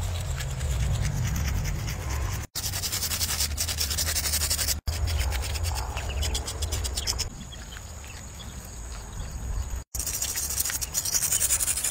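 Rapid scratchy rubbing strokes as paint is worked onto a concrete road surface by hand, in fast even runs, over a steady low rumble. The sound drops out sharply three times.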